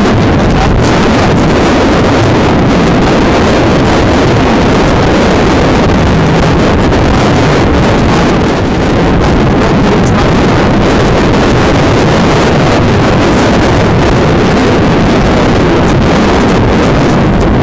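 Loud, steady wind noise buffeting the camera's microphone on a motorcycle at road speed, with the bike's engine and tyre noise blended in underneath.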